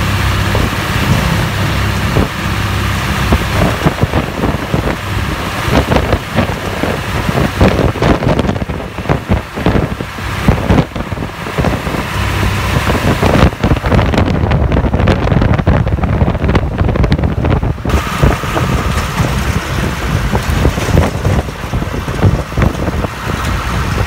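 Open-air truck driving over a bumpy dirt road: engine rumble, rattling jolts and wind buffeting the microphone. A faint steady whine joins in for the last few seconds.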